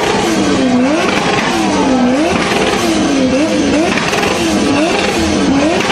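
Performance car engine being revved over and over, its pitch falling and climbing back about once a second, with a rough, crackling exhaust underneath.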